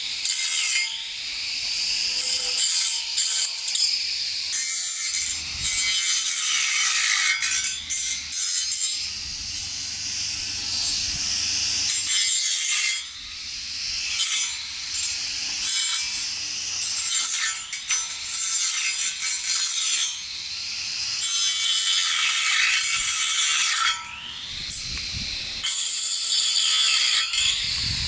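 Cordless electric grass trimmer running, its small motor whining as the spinning head cuts through dry grass and weeds; the pitch sags and picks up again several times, with brief easings around the middle and near the end.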